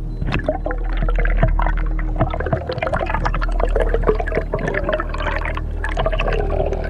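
Underwater camera sound of water moving and gurgling as a free diver swims, with a dense crackle of small clicks and a steady low hum underneath.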